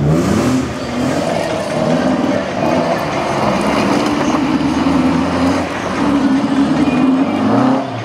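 Classic Mini rally car's engine revving hard on a gravel slalom run, its pitch climbing and dropping again and again as the driver works the throttle, held high through the second half and falling away near the end.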